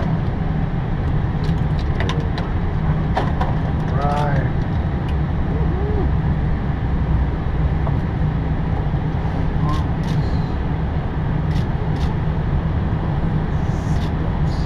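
Steady low drone of an Airbus A320 at idle, heard inside the cockpit. Faint voices and a few sharp clicks sit on top of it.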